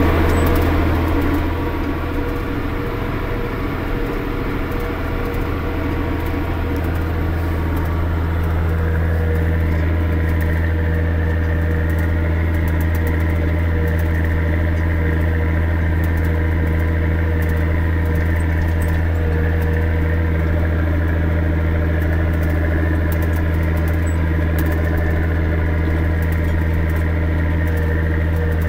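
Massey Ferguson 6280 tractor's six-cylinder diesel engine running steadily under the load of pulling a plow, heard from inside the cab. It dips slightly early on, then is a little louder and fuller in tone from about eight seconds in.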